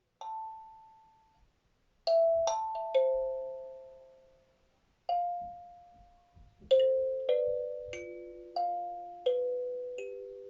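Kalimba (thumb piano) plucked slowly: a single note, a pause of nearly two seconds, then about ten more notes in an unhurried melody, each ringing out and fading, often overlapping the next.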